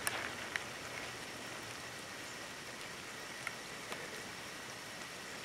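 Light rain falling: a steady soft hiss with a few scattered drop ticks.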